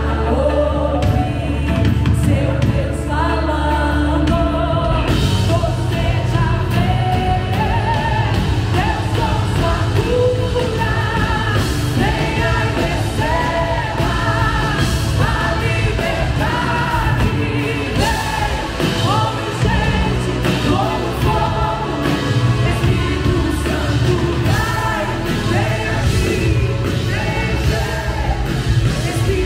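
Live worship band playing a song: a woman sings the lead in Portuguese over electric and acoustic guitars and drums, with the congregation singing along.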